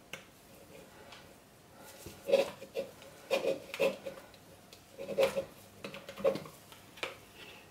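Utensil scraping and tapping against a plastic measuring jug as thick soap batter is scooped out, in a few short bursts with quiet gaps between.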